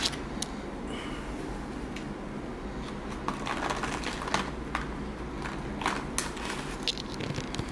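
Plastic and foil bags crinkling and rustling, with scattered small crackles, as cannabis buds are pulled from the bags and broken up by hand, over a low steady background hum.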